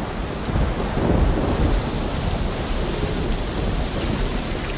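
Thunderstorm: heavy rain falling with a low rolling rumble of thunder that swells about a second in.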